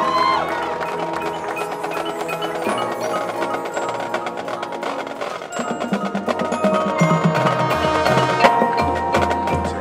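Marching band front ensemble playing: mallet percussion (marimba, glockenspiel, chimes) over sustained chords. Low drum hits join about halfway in.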